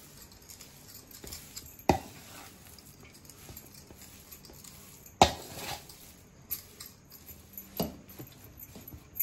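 Metal spatula scraping and stirring a crumbly peanut, jaggery and ghee ladoo mixture in a large metal kadhai, with a few sharp knocks of the utensil against the pan; the loudest knock comes about five seconds in.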